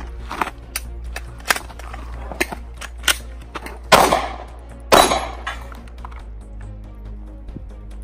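Two loud handgun shots about a second apart, each with a short ringing tail, after several fainter sharp cracks, over background music.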